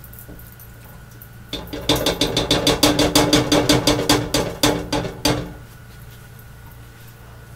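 Spatula knocking rapidly against the side of a pan while butter is stirred: a quick run of knocks, about seven a second, starting about one and a half seconds in and stopping after about four seconds, with the pan ringing faintly under them.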